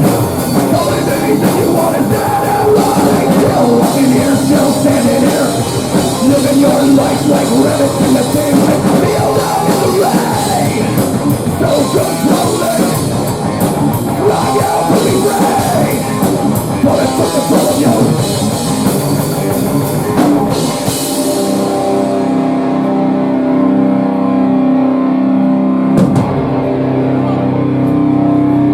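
Live rock band playing loud, with drums and distorted guitar. About two-thirds of the way through, the drums and cymbals stop and held notes ring on steadily.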